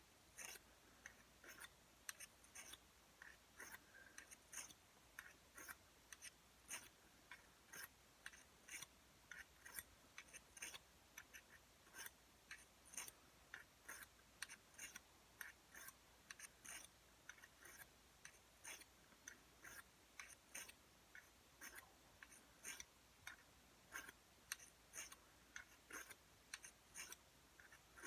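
Steel dagger blade pushed in repeated strokes across an oiled sharpening stone, a faint short scrape with each pass, about two a second.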